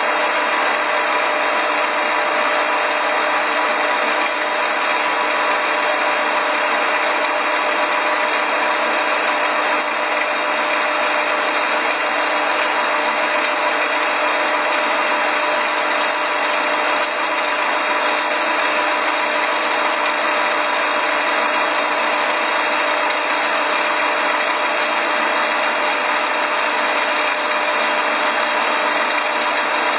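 Soy protein chunk extrusion line running steadily: a constant machine noise with a dense, even rattle and a steady hum, as extruded chunks pour out of the outlet onto a sack.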